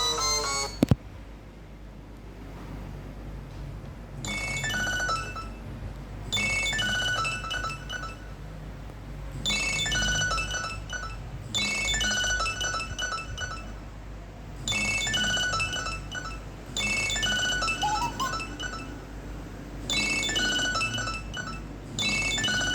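Nokia 3110 classic's speaker playing a Nokia 6100 ringtone, a short bright electronic melody repeated over and over from about four seconds in. Just under a second in, the previous tune cuts off with a click.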